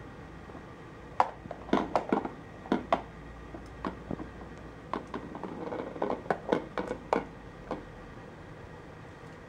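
Plastic clacks and taps from a Petstages Cheese Chase ball-track toy as a kitten bats at it, with the ball knocking around in the track. Irregular sharp clicks for several seconds, the loudest about a second in.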